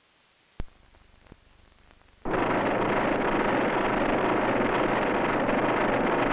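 Rapid automatic gunfire from a helicopter's weapons: a steady, dense roar that starts suddenly about two seconds in, after a couple of faint clicks.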